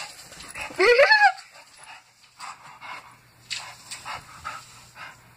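Bulldog gives one short whine that rises in pitch about a second in, then pants and snuffles in short noisy bursts.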